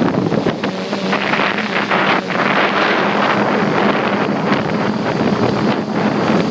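Electric motors and propellers of an RC tricopter buzzing steadily in flight, heard from a phone strapped to the frame, with heavy wind buffeting on the microphone.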